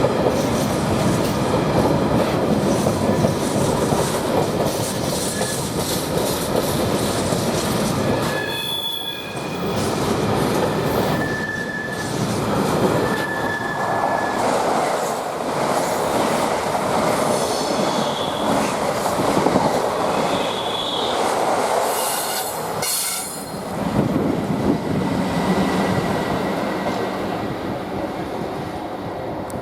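A train running past on the line: steady wheel and rail noise with clattering over the joints and brief high wheel squeals in the middle, fading away near the end.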